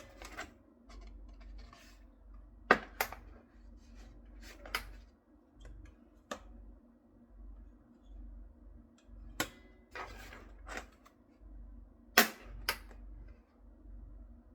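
Irregular sharp clicks and knocks of small hard parts being handled, loudest about three seconds in and near twelve seconds, over a low steady hum.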